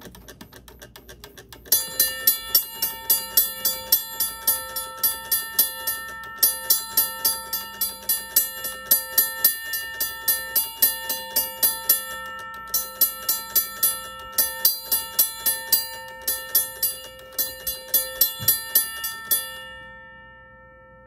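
Safetran electromechanical railroad crossing bell ringing at its slowest speed: after a second or two of faint rapid clicking, the striker hits the gong about three times a second, with a few brief breaks in the beat. The ringing stops near the end and the tone dies away.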